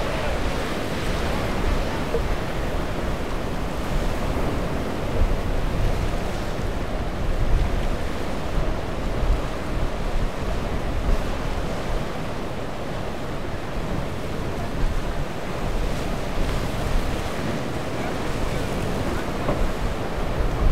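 Ocean waves and surf washing steadily, with gusty wind rumbling on the microphone.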